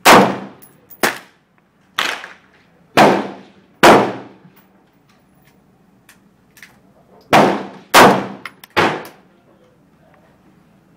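AR-15 rifle fitted with a Tromix Shark muzzle brake firing eight shots, very loud with a ringing tail after each. Five come about a second apart, then after a pause of about three seconds three more follow in quicker succession.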